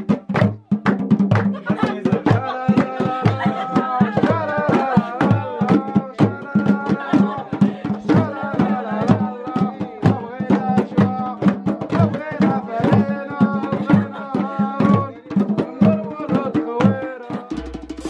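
A group beating hand drums, tall clay drums and a djembe, in a ragged, uneven rhythm, with voices singing along over the strokes.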